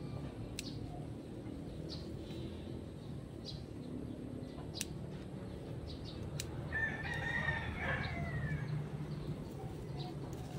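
A rooster crowing once, a long call about seven seconds in. A few sharp clicks sound earlier, over a steady low background rumble.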